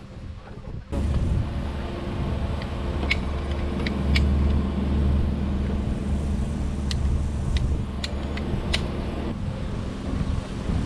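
A nearby engine idling steadily, a low rumble that starts about a second in, with several sharp clicks from a ratchet pipe cutter being squeezed through black polyethylene water line.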